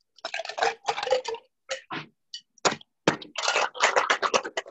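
A metal cocktail shaker being handled and shaken with ice: scattered clacks and rattles at first, then from about three seconds in a fast, even rhythm of hard rattling strokes.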